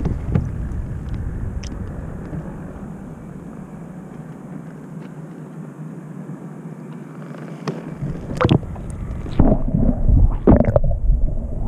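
Water lapping and hissing around a camera held at the surface, turning about eight seconds in to loud, muffled, irregular sloshing and gurgling as the camera goes underwater.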